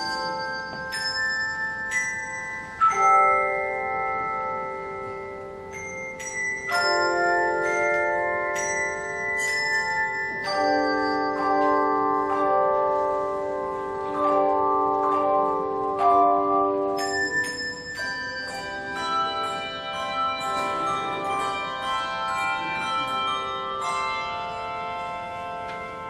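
Handbell choir ringing a hymn arrangement: struck chords that ring on and change every second or two, then quicker, denser runs of notes from about two-thirds of the way through.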